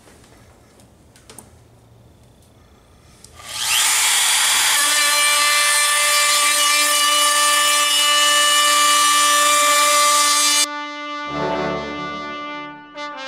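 A compact Makita trim router starts about three and a half seconds in, spinning up to a loud high whine, and runs while routing the edge of a wooden board. It cuts off abruptly near the end and music with brass takes over.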